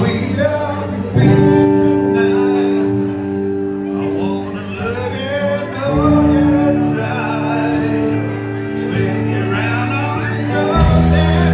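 Live country band playing: acoustic and electric guitars, bass guitar and a drum kit, amplified through the room's PA.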